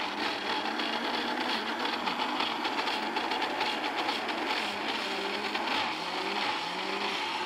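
Countertop electric blender running steadily at full speed, mixing a runny chocolate cake batter.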